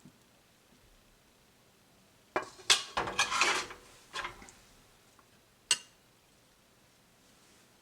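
Kitchen utensils clattering against dishes or cookware: a burst of clinks and scrapes lasting about two seconds, starting a couple of seconds in, then one sharp clink near the end.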